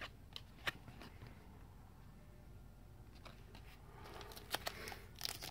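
Baseball trading cards being handled and flipped: a few faint clicks and taps as the cards are moved, with denser clicking and rustling near the end.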